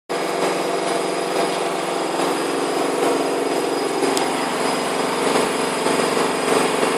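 Washing machine running steadily, a constant mechanical hum with a broad rushing noise and no knocking or banging.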